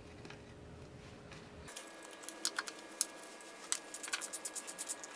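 Faint room tone, then from about two seconds in a run of sharp metallic clicks, irregular at first and then quick and even near the end: a socket ratchet being worked on engine fasteners.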